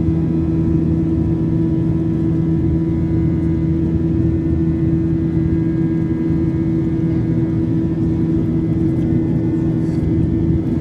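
Cabin noise of a Southwest Airlines Boeing 737-800 climbing after takeoff, heard from a window seat beside the engine. Its CFM56-7B turbofans run at climb power as a steady drone with a constant low hum.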